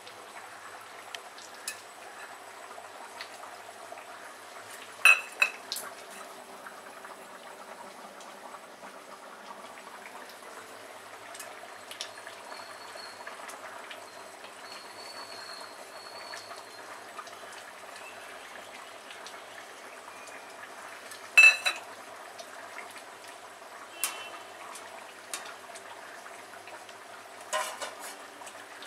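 Chicken curry bubbling steadily at a simmer in a metal kadai. A metal utensil clinks sharply against the pan several times, loudest about five seconds in and again past twenty seconds.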